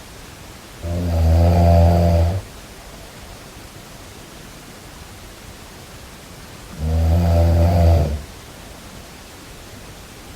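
Snoring: two long, low-pitched snores about six seconds apart, each lasting about a second and a half, over a steady hiss.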